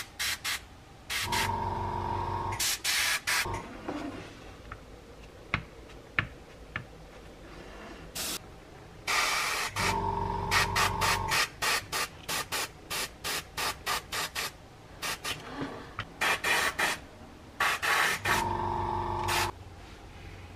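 Airbrush spraying paint in many short hissing bursts as the trigger is pressed and released, with a small airbrush compressor humming steadily in three stretches of a second or two each.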